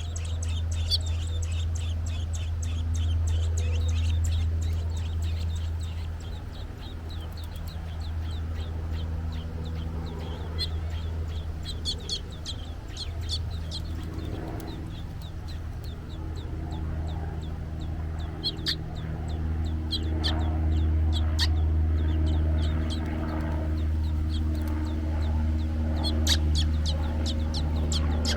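American robin chirping: many short, sharp chirps, some in quick runs and some single, over a steady low rumble.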